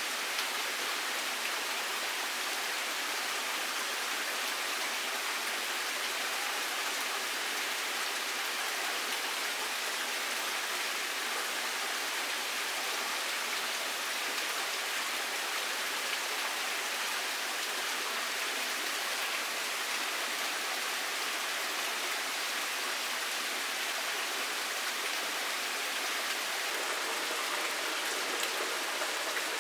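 Steady, even hiss of water with no breaks or separate drops standing out.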